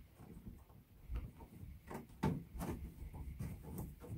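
A handful of light knocks and clicks from a plastic water-tank fitting and its tubing being handled and screwed down by hand.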